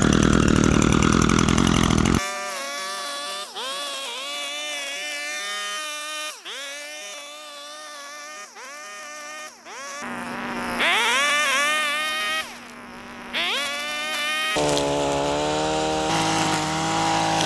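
Gas string trimmer's two-stroke engine running hard while cutting trail brush, its pitch repeatedly dropping and climbing back as the line bites into the growth. A loud, harsh burst of cutting noise fills the first two seconds, and near the end the engine settles to a steadier, lower note.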